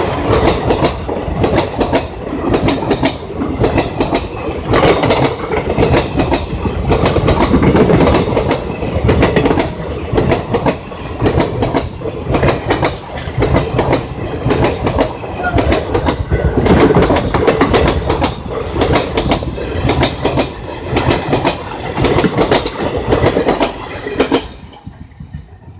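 Wheels of fast-moving Indian Railways express passenger coaches clattering over the rail joints in a rapid, regular clickety-clack as the coaches pass close by. The clatter drops away suddenly near the end as the last coach passes.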